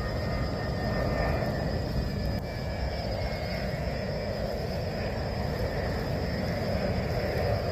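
Airbus A330-900 airliner's jet engines running during landing: a steady rushing jet noise with a faint whine above it in the first few seconds.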